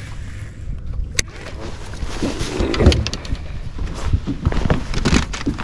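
Irregular knocks and clunks over a steady low rumble on a fishing boat.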